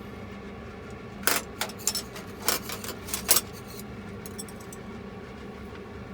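Kitchen utensils clinking and clattering against dishware, about six sharp metallic knocks over two seconds starting a second in, over a steady low hum.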